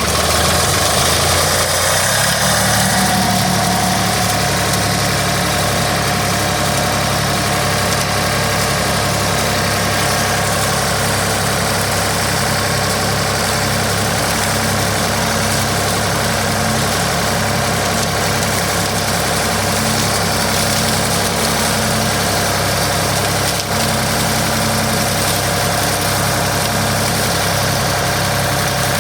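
The engine of a 555 tractor-loader-backhoe running under way. It picks up speed about two seconds in, then runs steadily.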